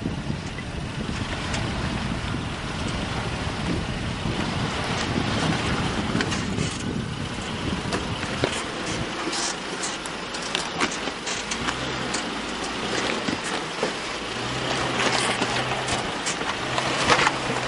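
Isuzu Amigo 4x4 crawling over rock ledges, its engine running low and surging on and off, with scattered knocks and crunches of tyres on rock. Wind rushes over the microphone, heaviest in the first half.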